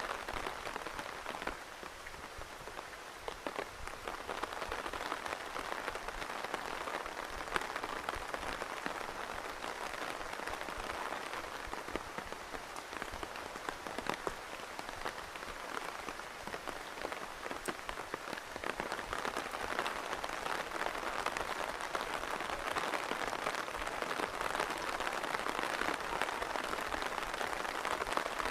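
Steady rain falling, with many small separate drop impacts heard through the continuous hiss.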